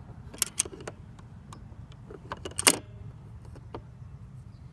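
Hard plastic clicks and knocks from a Thomas & Friends pop-up toy being handled, its buttons and pop-up engines clacking. The clicks come in a few quick clusters, the loudest a little past halfway, over a low steady rumble.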